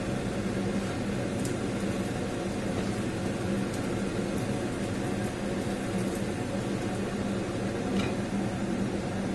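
Steady machine hum with a low drone over a soft hiss, like a kitchen motor running. A few faint light clicks of a spatula against the frying pan, the last about eight seconds in, as a cooked blin is lifted onto the plate.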